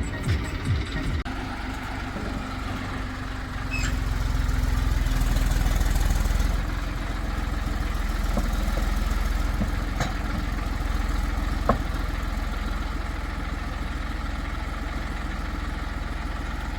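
Heavy diesel engine running steadily at a low drone, swelling louder for about two and a half seconds starting about four seconds in, as under load, then settling back; a sharp click sounds once near the end of the middle.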